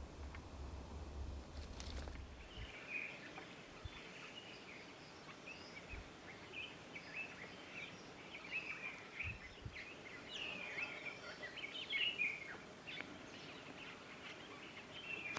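Several wild birds chirping and calling, with many short, overlapping high chirps and little gliding calls. A low steady hum at the start stops about three seconds in.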